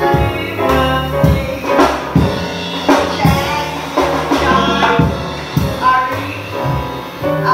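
Live jazz combo playing: a woman singing into a microphone over grand piano, upright double bass and a drum kit keeping a steady beat.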